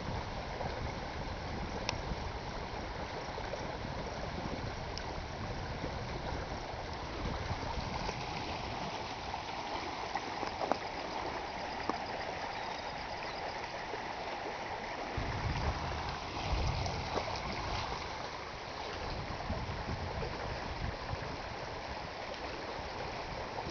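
Muddy flash-flood runoff flowing down a gravel desert wash: a steady rush of moving water.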